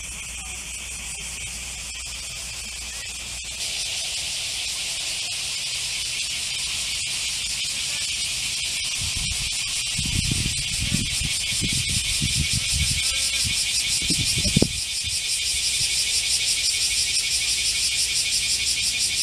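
Insects buzzing: a loud, steady high-pitched chorus that grows louder a few seconds in and takes on a fast pulsing in the second half. Low rumbling and a single thump come through in the middle.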